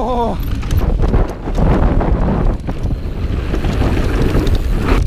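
Wind buffeting the microphone of a helmet-mounted camera on a fast mountain-bike descent, over the rumble of the Polygon Siskiu N9 enduro bike's tyres on loose dirt and short rattles and clicks from the bike.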